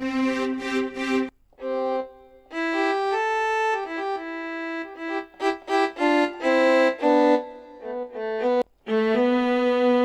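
Korg Triton synthesizer string patches (Arco Strings, Solo Violin, Violin & Viola) playing short melodic phrases on the keyboard. The sound stops briefly twice, about a second and a half in and near the end, as the patches are switched.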